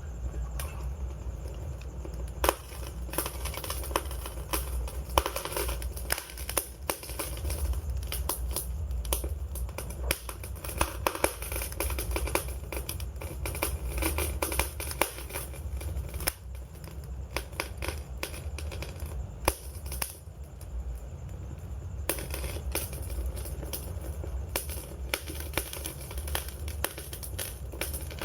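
Wood fire crackling: a dense, irregular stream of small crackles with sharper pops here and there, over a steady low rumble.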